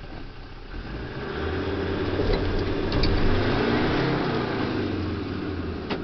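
Land Rover Defender 110's engine pulling the truck along, heard from inside the cab. It rises in level over the first few seconds, peaks about halfway, then eases off.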